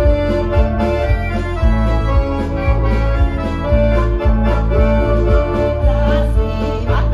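Accordion playing a folk tune through a stage PA, held reedy notes over a steady beat in the bass.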